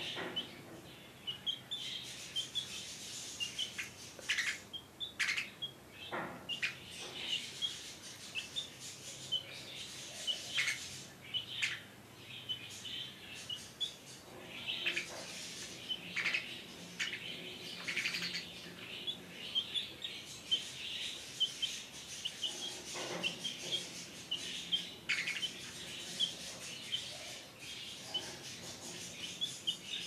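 Baby chick and young budgie chirping: a steady run of short, high peeps, several a second, mixed with brief scratchy sounds.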